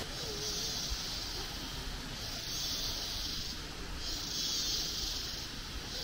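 Tropical insects buzzing in a high-pitched chorus that swells and dies away about every two seconds, over a steady rushing of the river.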